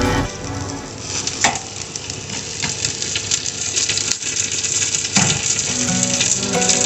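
Tandoori chicken leg pieces sizzling on a barbecue grill as they are turned over, with two sharp clicks, about a second and a half in and again about five seconds in.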